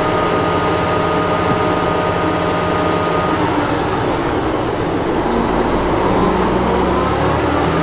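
Liebherr R954 excavator's diesel engine running steadily, with a high steady whine that stops about a third of the way in and a slowly rising tone later on.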